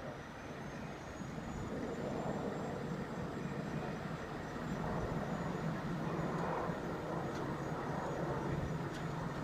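The engine of a crane running steadily, a low hum that grows a little louder about two seconds in.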